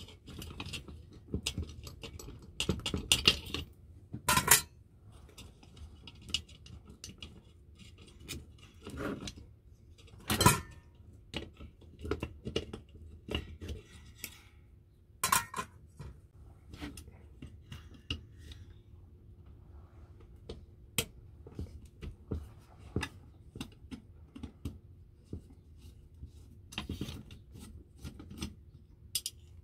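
Hand tools, pliers and a screwdriver, clicking and scraping on the steel springs and levers of a Salter milk scale's mechanism as it is taken apart. Scattered light metallic clinks, with a few sharper knocks.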